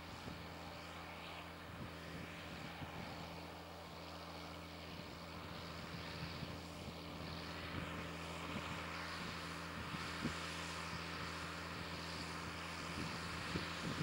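John Deere 4960 tractor's six-cylinder turbo diesel engine running steadily under load while pulling an eight-furrow mouldboard plough through soil, growing a little louder as it comes closer.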